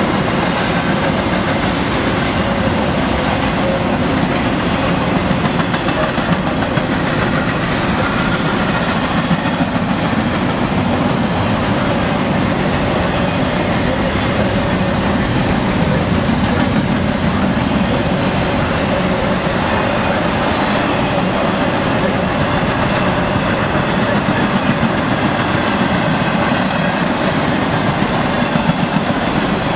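Double-stack intermodal freight train rolling past at speed: a loud, steady rush of steel wheels on the rails and the cars going by.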